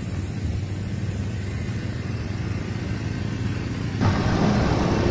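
An engine idling steadily with a low hum. About four seconds in, a louder, rougher noise comes in.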